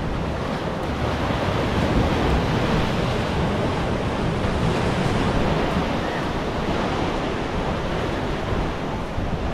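Ocean surf washing and churning into a rock gully on a reef, a continuous rushing of breaking water that swells a little about two seconds in. Wind buffets the microphone underneath.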